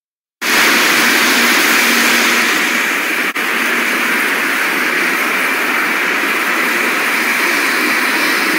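Heavy tropical rain pouring down onto a tree canopy, a steady loud hiss that starts about half a second in, with a brief dropout a little past three seconds.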